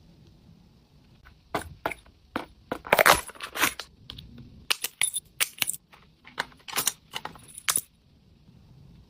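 Handling noises from an unboxing: a run of sharp, irregular clicks and crackles, loudest about three seconds in, stopping before the end.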